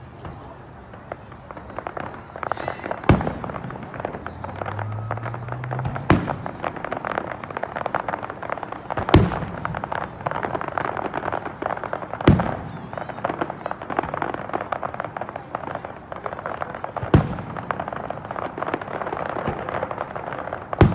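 Aerial fireworks display: heavy shell bursts every three to five seconds, with dense crackling between them.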